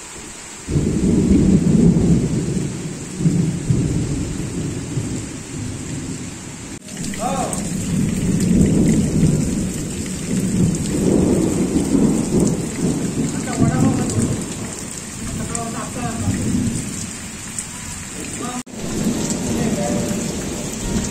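Heavy monsoon rain falling steadily, with deep thunder rolling almost throughout. The thunder starts suddenly about half a second in and swells and fades several times.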